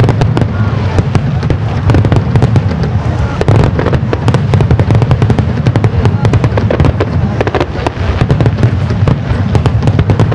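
Fireworks display shells going off in a rapid, continuous barrage: many loud overlapping bangs and crackles over a deep rumble.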